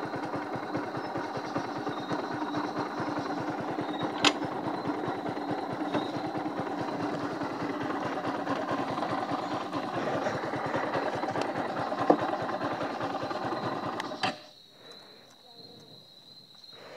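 Motorcycle engine idling steadily with a fast even beat, then switched off about fourteen seconds in. Afterwards only a faint steady high-pitched tone remains, with a couple of small clicks.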